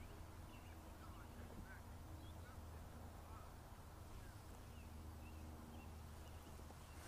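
Near-quiet background with faint, scattered short bird calls over a low steady hum.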